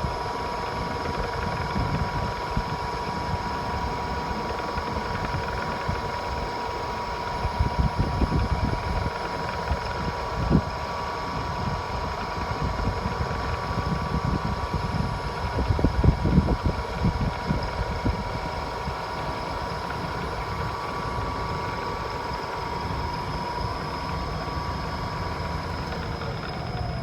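Supermax YCM-18 CNC vertical mill running, a steady whine over a low rumble, with a sharp knock about ten seconds in.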